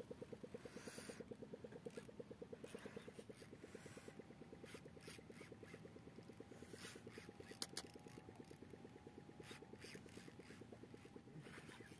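A fishing reel is wound against a hooked fish: faint scraping and clicks from the reel handle. Under it runs a steady, rapid, low throb.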